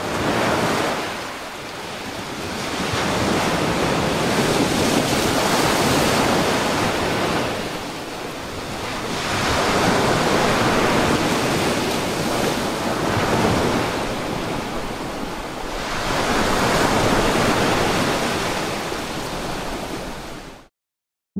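Sea surf breaking and washing over rocks, surging and easing in four slow swells, cutting off suddenly near the end.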